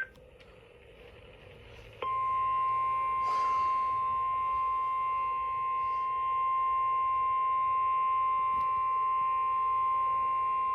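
NOAA Weather Radio 1050 Hz warning alarm tone: one steady beep that starts suddenly about two seconds in, after faint radio hiss, and holds for about nine seconds before cutting off. It signals that a warning message is about to be broadcast.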